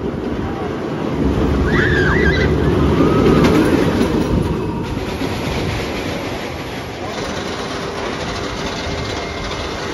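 Steel roller coaster train running along the track overhead, its wheels rumbling on the steel rails, swelling to a peak about three seconds in and then fading to a steadier rumble.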